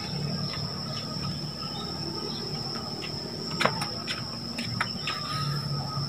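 Steady high-pitched insect trill, with a couple of sharp clicks a little past the middle.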